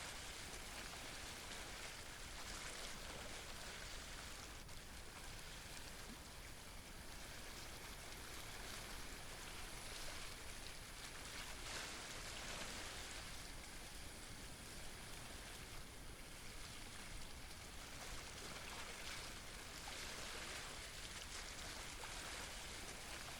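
Faint, steady wash of sea water against shore rocks, swelling and easing a little now and then.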